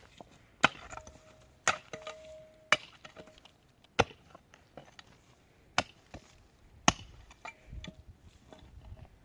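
Hand tool striking wood hard, six heavy blows about a second apart with a short pause after the fourth, some leaving a brief ringing tone, with lighter knocks between.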